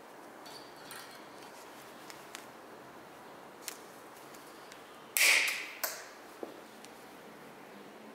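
Light ticks of handling, then a sharp metallic clink that rings briefly about five seconds in, followed by a smaller clink.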